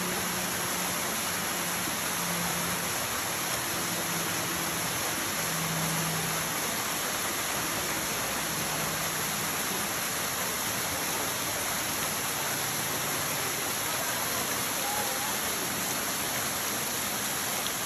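Waterfall pouring down a steep rock face into a pool: a steady, even rush of falling water.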